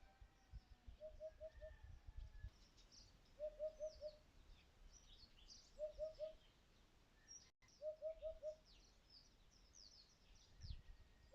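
Faint outdoor birdsong: one bird repeats a low call of three or four quick notes about every two seconds, while small birds chirp higher in between.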